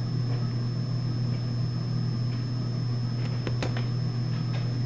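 A steady low hum, with a few light clicks about three and a half seconds in.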